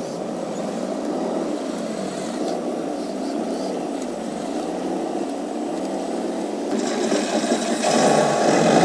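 Radio-controlled truck's electric motor and gearbox whining as it drives, the pitch wavering up and down with the throttle. About seven seconds in a hissing noise joins and grows louder.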